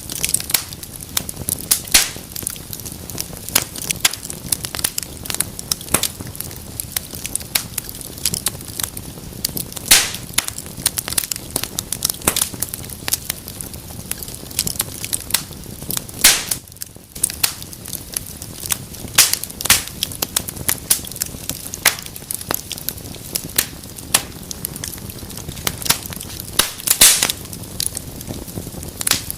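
Wood fire burning in a fireplace: a steady hiss of flames with frequent sharp crackles and pops from the burning logs, a few louder snaps among them.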